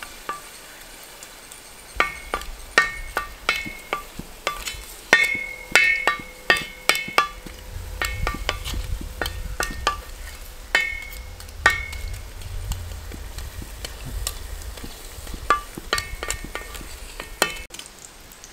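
Spatula and ladle knocking and scraping in a brass uruli, each strike ringing the pan briefly, while pieces of asafoetida fry in hot oil. The knocks start about two seconds in and come irregularly, several a second at times.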